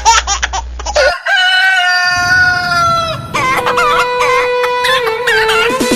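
Rooster crowing sound effect: one long held crow starting about a second in, then more warbling chicken calls.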